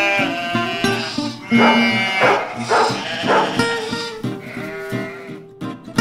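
Sheep bleating several times over plucked acoustic guitar music.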